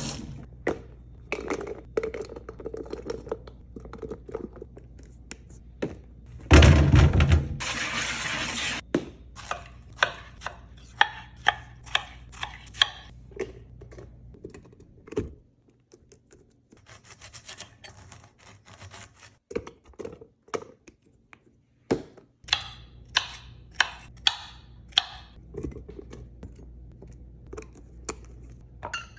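Packaged food and drink containers being handled and set down while a fridge is restocked: a long series of light taps, knocks and scrapes, with a loud rushing noise lasting about two seconds around seven seconds in.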